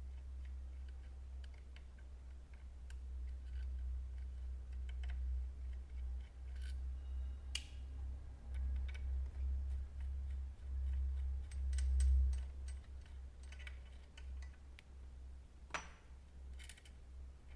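Scattered small clicks and taps of a screwdriver and screws as a graphics card is taken apart, over a low rumble that swells and fades.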